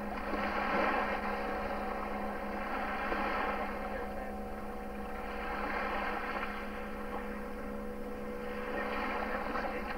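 Distant motorboat outboard engine droning steadily as the boat speeds across open water, over a constant low electrical hum.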